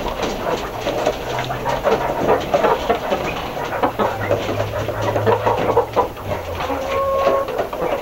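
Caged laying hens with a dense, busy clatter of clicks and knocks from the hens on their wire cage and feeder, and from brown eggs being lifted off the egg tray into a plastic bucket, over low hen clucking. About seven seconds in, one hen gives a short, steady call.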